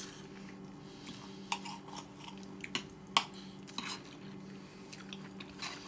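People chewing food close to the microphone, with scattered short mouth and utensil clicks, over a steady low hum.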